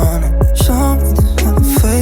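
Background music with a steady beat, bass and drums in a rhythm-and-blues style.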